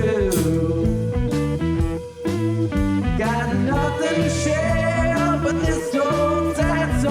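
Background music: a bluesy guitar song with a steady beat and a singing voice.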